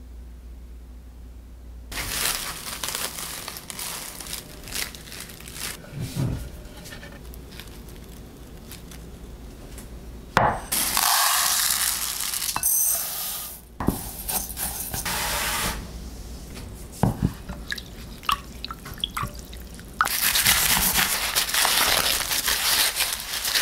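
Kitchen handling sounds: about ten seconds in, dry rice pours in a rush from a dispenser into a plastic measuring cup over a glass bowl. Near the end come the crackling and tearing of husks being stripped from an ear of sweet corn.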